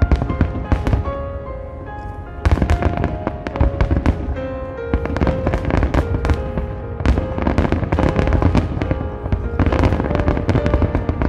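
Aerial fireworks bursting in a dense barrage, many sharp bangs in quick succession that thicken about two and a half seconds in, over music with held melodic notes.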